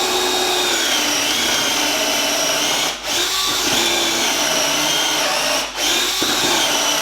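Bosch Professional 12 V cordless drill driver boring a 10 mm hole in wood, its motor whine steady and unstrained, dipping briefly twice and stopping at the end. It cuts through without bogging down.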